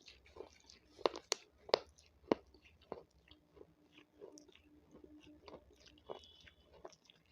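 Raw capsicum being bitten and chewed close to the microphone: a few sharp, crisp crunches in the first couple of seconds, then softer, steady chewing.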